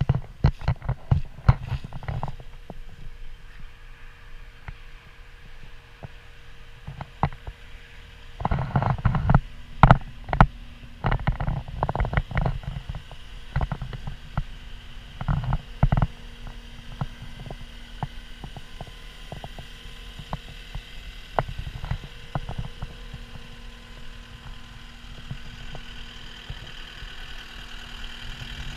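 CAT 236D skid steer loader's diesel engine idling with a steady low hum. Irregular bursts of loud low thumps and knocks come in clusters near the start, in the middle and about three-quarters of the way through.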